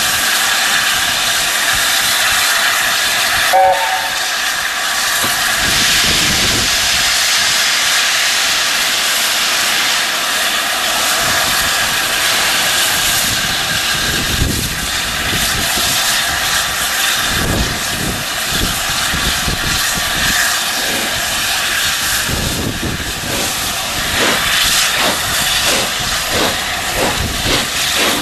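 LNER A4 steam locomotive 60019 Bittern standing with steam hissing steadily, and a brief whistle note about four seconds in. From about halfway it starts away: its exhaust chuffs begin and come faster toward the end.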